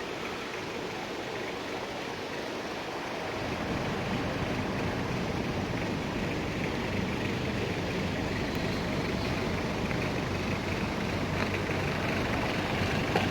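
Steady rushing noise of wind and distant river water in a mountain gorge, with wind rumbling on the microphone from about three and a half seconds in.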